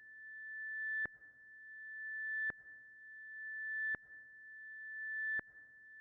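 Synthesized high electronic tone that swells steadily louder for about a second and a half, then cuts off sharply with a click, repeating four times in a regular pulse, like a reversed ping used as a suspense sound effect.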